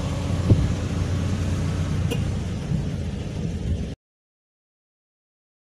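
Steady low rumble of a car engine idling, with a couple of light clicks, cut off to dead silence about four seconds in.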